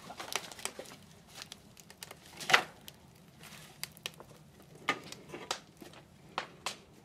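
Wood fire crackling and popping in the firebox of a wood-fired train kiln, with scattered knocks as wood offcuts are stoked in; the loudest knock comes about two and a half seconds in. A faint low hum runs underneath.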